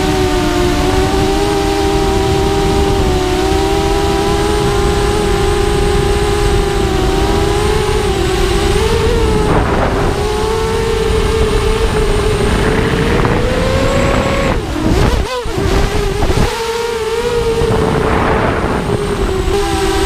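A 250-size FPV racing quadcopter's four Emax 2280 kV brushless motors and props whine steadily, the pitch rising and falling with the throttle, heard from the onboard camera with wind rush. About three-quarters of the way through, the whine drops sharply and swoops before climbing back.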